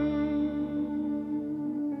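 Electric guitar holding one long sustained note that slowly fades.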